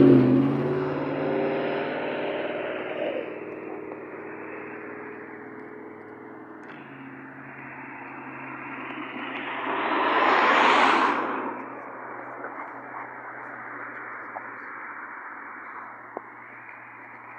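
A vehicle passing and fading away, its pitched sound sliding lower as it recedes, then a second vehicle passing about ten seconds in, over a low steady hum.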